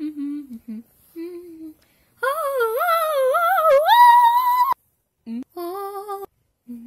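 A young person humming short low notes, then singing one long high wavering note that rises near the end and stops suddenly, then humming again: a made-up tune hummed as a soundtrack.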